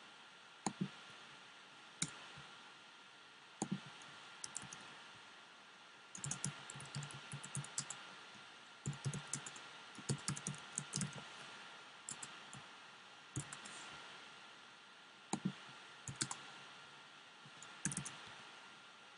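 Typing on a computer keyboard: short runs of keystrokes with single clicks between them, over a faint steady hiss.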